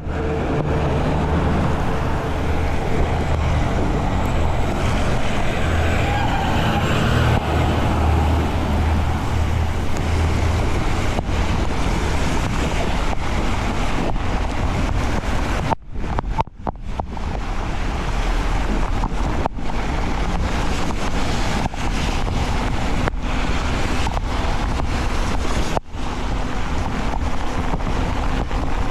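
Wind and rushing noise on an action camera's microphone during a fast mountain-bike ride on wet roads in heavy rain, a steady loud rush with a low rumble. It cuts out briefly twice, about halfway through and again near the end.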